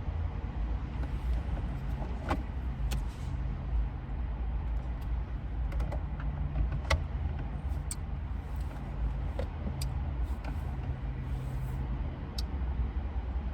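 Steady low vehicle rumble with a faint hum and a few light clicks.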